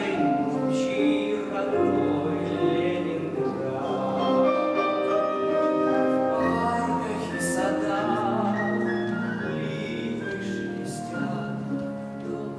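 Singers with piano accompaniment performing a song in a classical vocal style, holding long notes.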